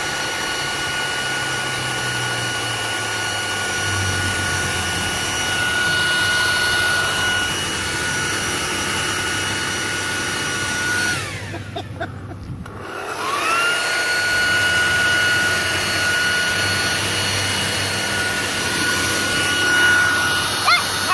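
Leaf blower running steadily with a high whine. About eleven seconds in it is throttled down almost to a stop, then spun back up to full speed about two seconds later, and it winds down again near the end.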